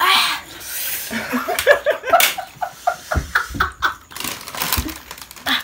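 Several people laughing loudly in quick runs of short ha-ha bursts, after a loud outburst right at the start.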